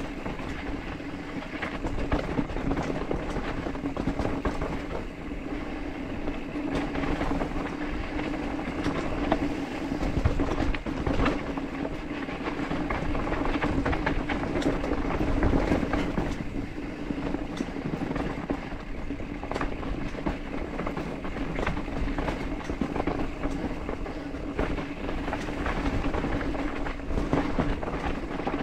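Mountain bike descending a rough dirt trail: continuous rattling and clatter of the bike over bumps, with tyre noise on dirt and a steady low hum underneath.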